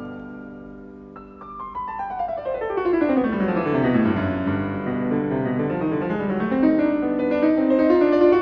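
Solo keyboard instrument playing: a chord fades, then a fast run of notes sweeps down into the low register and climbs back up.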